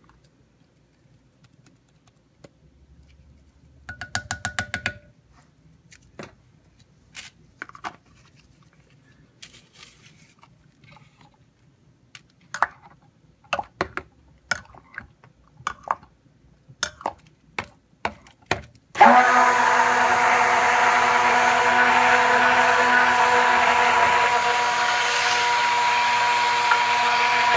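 Scattered light clicks and taps, then about 19 s in an electric stick blender switches on and runs steadily for about eight seconds, mixing the cold process soap batter, and stops near the end.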